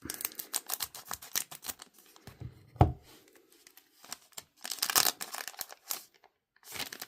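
Foil trading card pack being torn open and crinkled, with irregular crackly rustling as the wrapper is handled. A single thump about three seconds in is the loudest sound.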